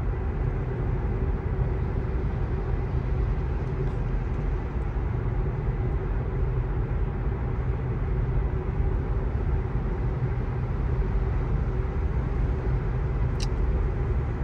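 Road and tyre noise inside an electric 2024 Tesla Model 3's cabin at highway speed: a steady low rumble with a faint steady hum.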